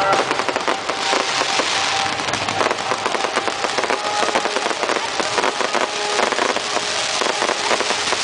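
Fireworks crackling: a dense, continuous stream of rapid sharp pops from bursting crackle stars.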